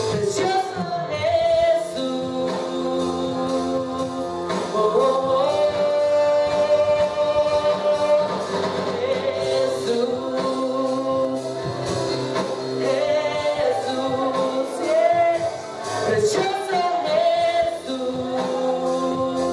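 Live worship singing: a congregation and worship leaders singing together over instrumental accompaniment, with long held notes.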